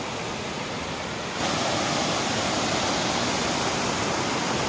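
Steady rush of a large waterfall, Kynrem Falls, falling water heard as an even roar of noise; it grows louder a little over a second in.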